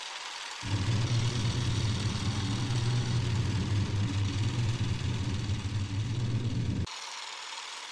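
A loud, low, steady rumbling drone, engine-like, that starts suddenly about half a second in and cuts off abruptly near the end; the hard edges mark it as an edited-in sound.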